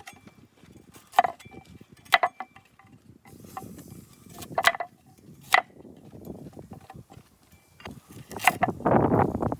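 Cooking utensils knocking and clinking against cookware: about five separate sharp clinks a second or so apart, some ringing briefly, over a low, uneven background noise that grows louder near the end.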